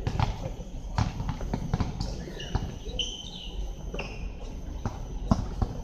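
Basketball bouncing on an outdoor hard court during play, making irregular thuds.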